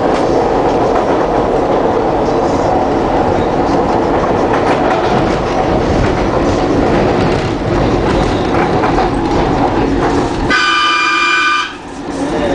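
SEPTA Market-Frankford Line elevated subway train running steadily along the track, heard from inside the front car. About ten and a half seconds in, the rumble briefly drops away under a high ringing tone lasting about a second, then the running noise returns.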